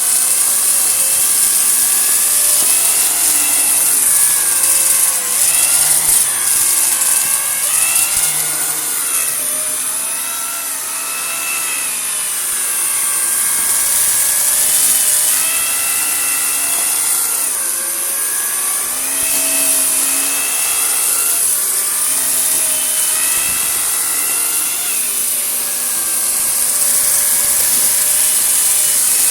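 Vacuum cleaner running, a steady high rush of air under a motor whine that rises and falls in pitch every second or two.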